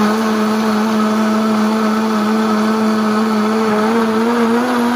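Countertop blender motor running at full speed, blending ice into a thick protein shake: a loud, steady whine whose pitch creeps up slightly near the end.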